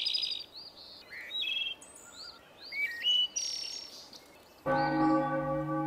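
Songbirds chirping in short, repeated phrases; about three-quarters of the way in, a church bell strikes once and keeps ringing.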